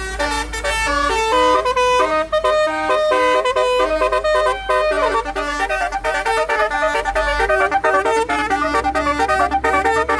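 Musical air horn, telolet style, playing a fast tune of short stepped notes, over a low steady rumble.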